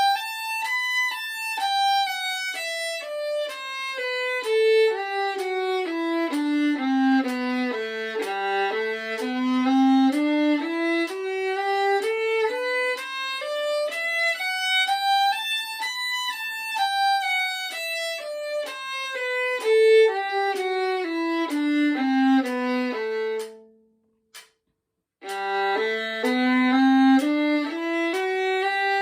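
Solo violin playing a G major scale up and down in even steps, two notes slurred to each bow stroke. About 24 seconds in it stops for a moment, then starts the scale again with four notes slurred to each bow.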